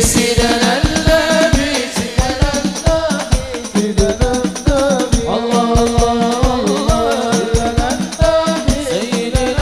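Sholawat (Islamic devotional) music: hand drums beating a steady rhythm of several strokes a second under a wavering melody.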